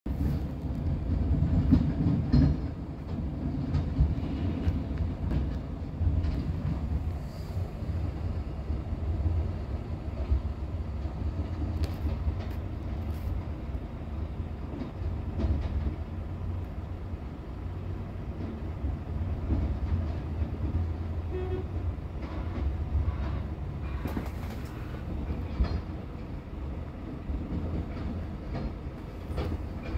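Tipper lorry's diesel engine rumbling steadily, heard from inside the cab, with scattered rattles and knocks. The rumble is loudest in the first few seconds.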